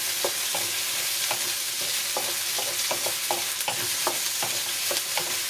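Diced potatoes, carrots and onions sizzling in oil in a wok, stirred with a wooden spoon that scrapes and knocks against the pan about two to three times a second.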